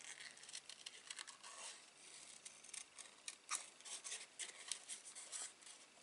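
Small scissors snipping printed card paper in faint, irregular little cuts, fussy cutting closely around a stamped image.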